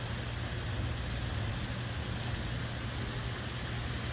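Heavy rain falling steadily on pavement, grass and roofs, an even hiss, with a low steady hum underneath.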